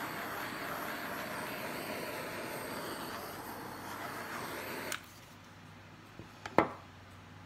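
Handheld butane torch flame hissing steadily as it is played over wet acrylic pour paint, then shut off about five seconds in with a click. Shortly after come a few small knocks, the last one sharp.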